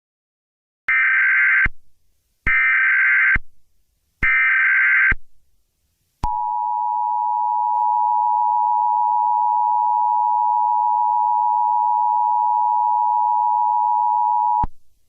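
Emergency Alert System alert start: three short bursts of warbling SAME header data tones, each under a second, then the EAS attention signal, a steady dual tone of about 853 and 960 Hz held for about eight seconds and cut off sharply near the end.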